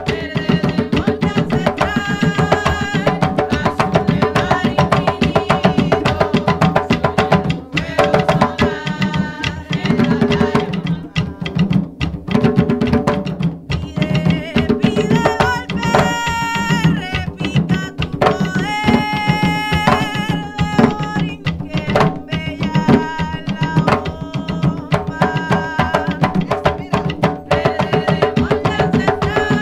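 Puerto Rican bomba played on barril drums: the buleo drums keep a fast, steady rhythm while the primo drum answers the dancer's moves. Singing voices come and go over the drumming, most clearly in the middle.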